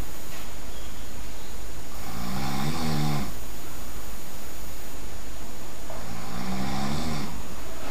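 A person snoring loudly in sleep: two long, rasping snores about four seconds apart, each with a low pitched tone.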